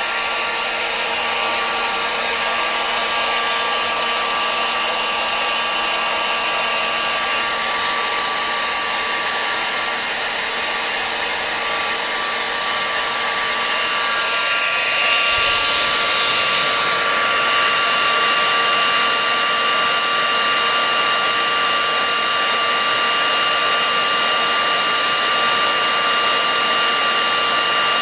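Hot air rework gun blowing for reflow soldering: a steady rush of air with a high fan whine that rises in pitch as it spins up at the start. About halfway through the air rush turns briefly louder and rougher.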